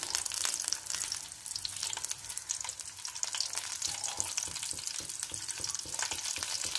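Whole pearl spot fish shallow-frying in hot oil with ginger, garlic and curry leaves: steady sizzling with dense, continuous crackling.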